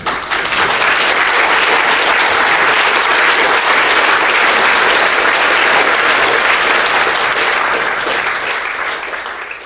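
Audience applauding: a dense patter of clapping that starts suddenly, holds steady, and dies away over the last couple of seconds.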